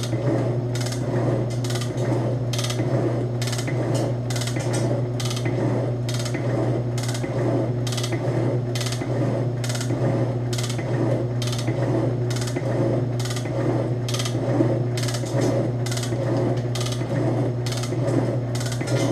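Ammco 7-inch metal shaper taking a roughing cut: a steady motor and drive hum with a regular clack at each stroke of the ram, a little under once a second.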